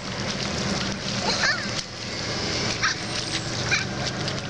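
Children's bare feet splashing and slapping through a shallow rainwater puddle on pavement, a run of short irregular splashes, with brief high children's calls now and then.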